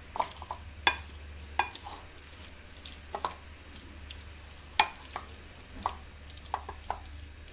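Wooden spoon stirring mayonnaise-coated potato cubes in a plate: soft wet mixing with irregular light clicks as the spoon knocks the plate, over a low steady hum.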